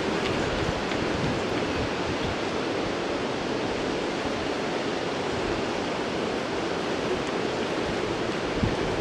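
Steady rushing noise of sea surf and wind, even throughout with no clear breaks.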